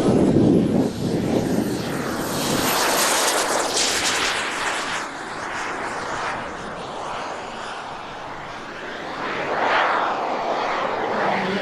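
Turbine of a large RC model English Electric Lightning jet, a B300F, flying past. A rushing noise with a thin high whine that rises and then falls. It is loudest at first, fades in the middle and swells again near the end as the jet comes round.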